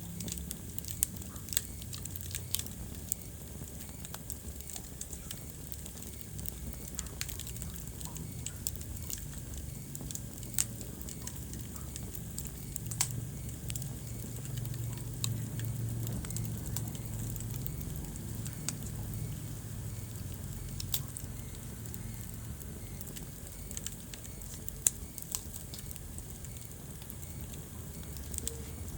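Wood fire burning in a fireplace, crackling with irregular sharp pops over a low steady rumble.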